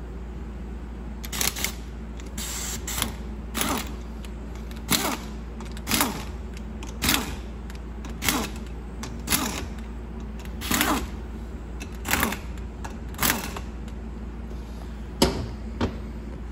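Handheld air tool run in short, light-trigger bursts about once a second, each a brief whir that rises and falls in pitch, snugging down the bolts of an E4OD/4R100 transmission pump.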